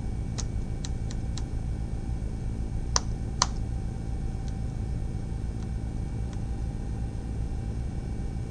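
Keys on an NEC PC-LL750ES6W laptop keyboard pressed one at a time while stepping through BIOS setup menus: about four light clicks in the first second and a half, two sharper clicks around three seconds in, then a few faint ones. A steady low hum runs underneath.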